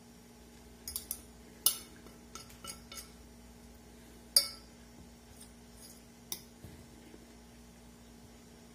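Metal fork clinking and scraping against a ceramic plate while eating: about ten short, sharp clinks, the loudest nearly two seconds and about four and a half seconds in.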